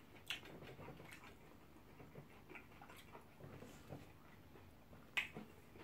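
Faint eating sounds of pounded yam and ogbono soup eaten by hand: soft chewing and handling of the food, with a few short sharp mouth smacks, the loudest about five seconds in.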